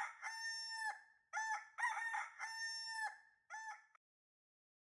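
Rooster crowing: the tail of one cock-a-doodle-doo, then a second full crow, each a few short notes rising into a long held note, and a short call about three and a half seconds in. It stops before the end.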